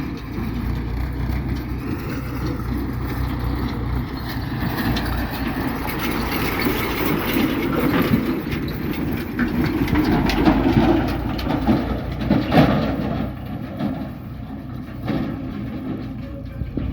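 Diesel engines of a JCB 3DX backhoe loader and a tractor running steadily during mud loading, with clanks and rattles that grow in the middle and the loudest knock about twelve and a half seconds in.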